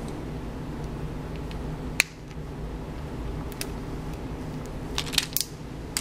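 Small sharp clicks of a fine flat screwdriver tip pressing down on the spring latch of a Casio G-Shock band pin to free it: one sharp click about two seconds in, a few faint ticks, then a cluster of clicks near the end, over a steady low hum.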